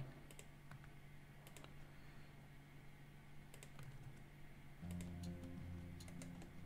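Faint, scattered clicks of a computer keyboard and mouse. About five seconds in, quiet background music with held notes comes in.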